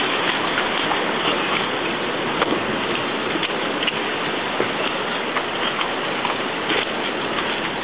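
Sea water washing and splashing against shore rocks, a steady rushing noise with a few small splashes and knocks scattered through it.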